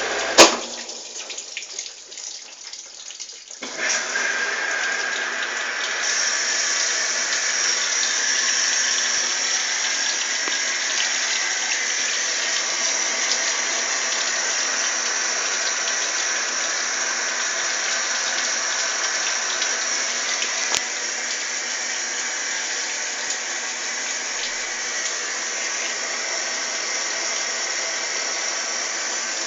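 Consul washing machine: a sharp click about half a second in, then after a few quieter seconds a steady rush of water starts and keeps running.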